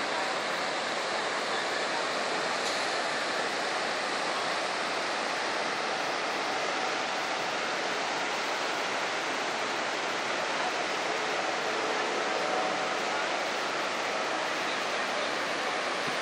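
Niagara River rapids and falls: a steady, even rush of turbulent water.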